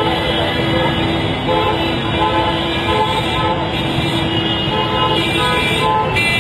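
Busy road traffic with vehicle horns honking; a horn holds one steady note for a few seconds at the start, with shorter toots later on.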